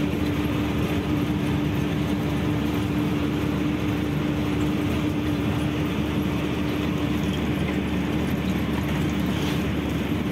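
Truck driving along the road: the engine runs at a steady drone with a constant hum, mixed with road noise.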